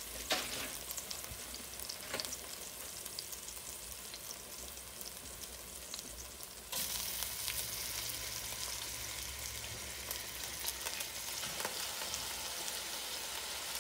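Chopped onions and garlic sizzling in hot oil in an enameled Dutch oven, a steady hiss with small crackles. About halfway through, the sizzle jumps louder and stays that way.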